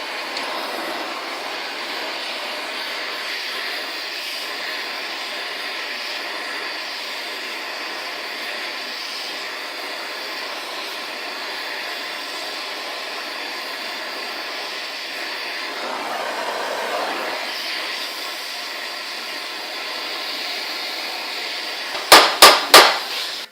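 Cutting torch flame hissing steadily as it heats a crooked steel vise part for straightening. Near the end, a quick run of three or four loud hammer blows on the hot metal.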